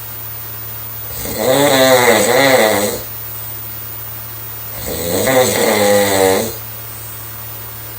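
A young woman snoring loudly in her sleep: two long snores with a wavering pitch, the first starting about a second in and the second about five seconds in, each lasting close to two seconds. A steady low hum runs underneath between the snores.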